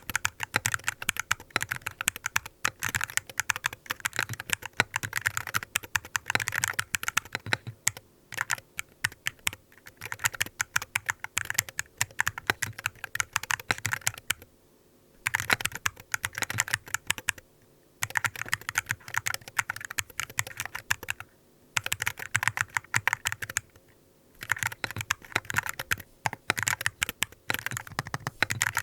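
ZIRNEX Herald 68-M keyboard with TTC King of Magnetic switches being typed on quickly: fast runs of keystrokes clicking and clacking, with brief pauses between bursts about halfway through and a few times after.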